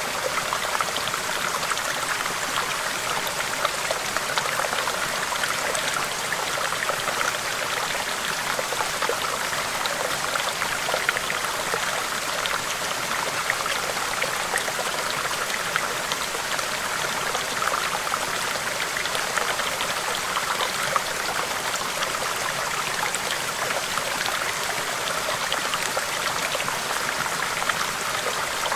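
Small stream running over rocks: a steady babble of flowing water with many small splashes and drips.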